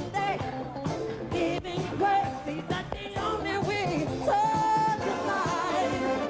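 Live pop-funk band playing with a lead singer, a long held sung note about halfway through.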